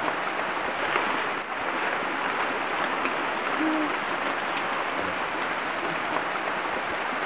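Steady rushing of a river, with a bird giving a few short, low calls over it.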